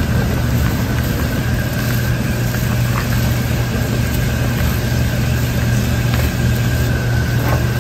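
Steady low mechanical hum with a faint, constant high whine, from kitchen machinery running, under the soft rustle of a gloved hand tossing shredded radish salad in a plastic bowl.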